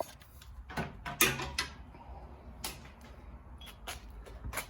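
Several separate clicks and knocks as parts of a removed Hurst shifter are handled and taken off, the loudest about a second in.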